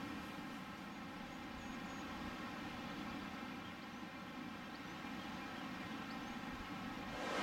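Open-air meadow ambience: a steady low hush, with a few faint, brief high bird chirps scattered through it.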